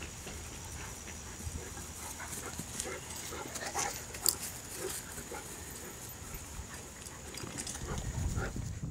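An English Mastiff and a puppy playing on grass, with short, scattered dog noises throughout and a sharp click about four seconds in. A low rumble builds near the end.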